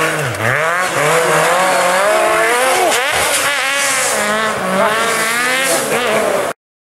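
Rally car engine revving hard, its pitch rising and falling again and again as the car slides through a loose, dusty bend. The sound cuts off abruptly near the end.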